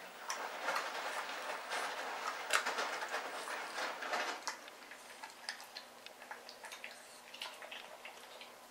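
Shar-Pei puppy chewing raw chicken ribs, the bones crunching and cracking between its teeth: a quick run of crunches for about the first four seconds, then slower, scattered ones.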